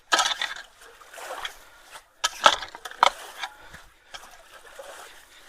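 Water splashing and sloshing in a few short bursts as leaves and debris are pulled out of a clogged culvert, with water trickling between the splashes.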